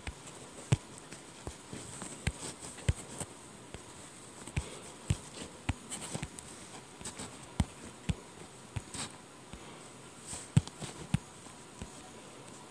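Light, irregular clicks and taps of drawing on a tablet touchscreen, about one or two a second, over a faint steady hiss.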